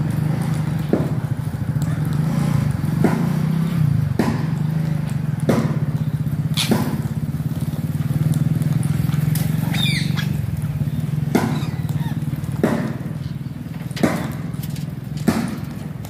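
A steady low mechanical hum like a motor running, with sharp clicks about every second and a short gliding chirp past the middle.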